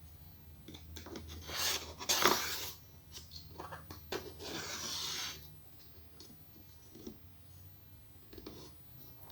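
Hands working inside an opened iMac: rubbing and scraping handling noises, with two louder scraping rushes about a second and a half and four seconds in, and a few small clicks.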